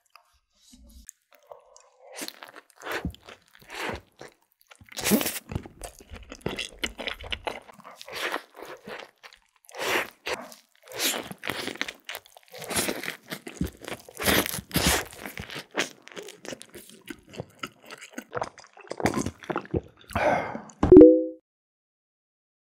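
Close-miked eating of a saucy cheeseburger with lettuce and sweet potato fries: irregular crunchy bites and wet chewing, with no speech. Just after 20 s comes one short, loud edited sound with a brief low tone, at the cut to the next segment.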